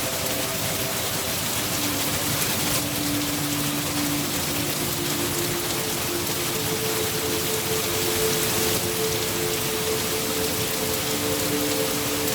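Steady rain falling on a surface, an even hiss with no change in level. Faint held low tones sound underneath and shift every few seconds.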